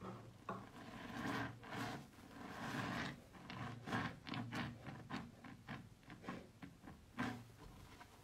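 A hand squishing and pressing soaked, mushy soap, making irregular wet squelches, with a quick run of short crackling pops through the middle.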